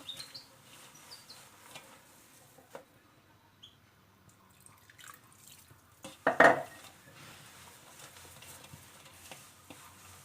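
Hands mixing and kneading a damp barley-flour and herb dough in a bowl, with faint scraping and small clicks. A short, louder clatter against the bowl comes a little past the middle.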